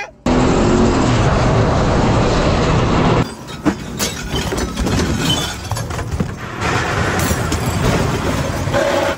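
Loud rushing road noise of a caravan towed at speed. From about three seconds in, its loose contents clatter and bang as the trailer is thrown about.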